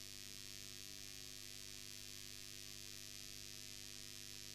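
Faint, steady electrical mains hum with hiss from the microphone and sound system.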